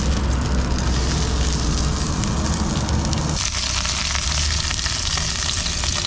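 Oil sizzling in a nonstick frying pan, with cattail pieces and then a whole scored trout frying, over a steady low rumble. The sizzle turns hissier about three and a half seconds in.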